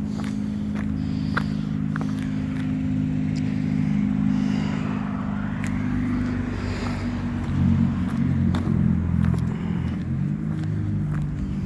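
A motor vehicle's engine running close by, a steady low hum whose tone turns uneven about two thirds of the way through, with scattered light clicks over it.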